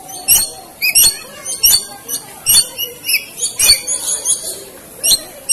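Lories calling close by: a run of short, shrill shrieks, about one or two a second.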